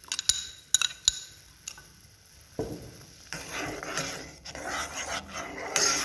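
A plastic ladle clinks a few times against a nonstick saucepan, then stirs and scrapes through simmering milk with papaya pieces, the liquid swishing in the pan.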